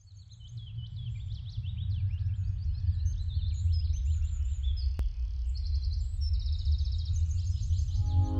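Many birds chirping and trilling over a steady low rumble, fading in at the start. A single click comes about five seconds in, and music with held notes begins near the end.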